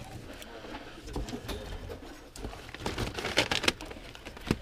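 Metal hand tools and parts clinking and knocking as they are picked up and sorted, with a quick run of clicks about three seconds in and a sharper knock near the end.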